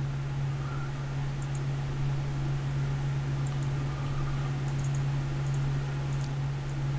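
A steady low hum with faint, scattered clicks of a computer keyboard and mouse as text is typed and selected, the clicks coming more often in the second half.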